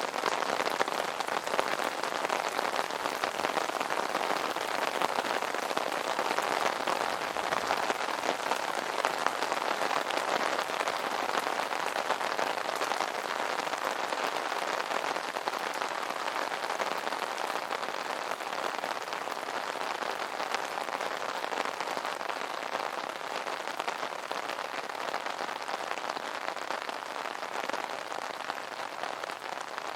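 Rain pattering on an umbrella canopy, a dense steady patter of drops that eases slightly toward the end.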